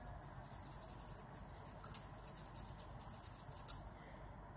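Faint rubbing of a cotton wad being wiped over a metal baritone valve piston, with two light clicks a couple of seconds apart.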